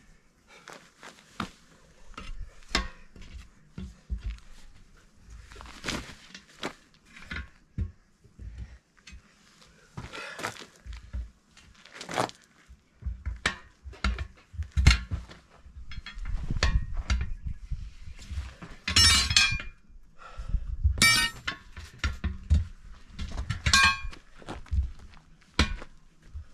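Steel tyre levers clanking and knocking against a wheel rim while a truck tyre's bead is levered off by hand. In the second half there are three longer, harsher scrapes.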